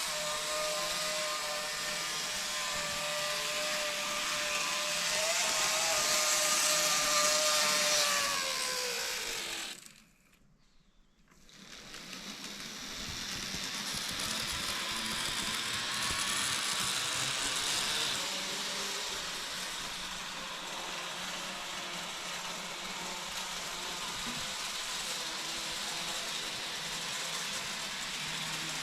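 TOMIX 475-series model train's motor and gears running with a high whine made of several tones. The whine falls in pitch as it slows to a stop about ten seconds in, then the running sound starts up again, rougher and steady.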